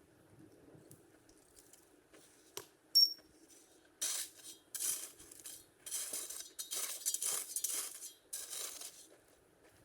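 A sharp metallic clink with a brief ring about three seconds in, followed by several seconds of repeated scraping and crunching.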